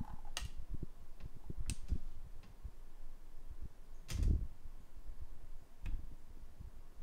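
Handling noise: scattered light clicks and knocks, with a duller thump about four seconds in.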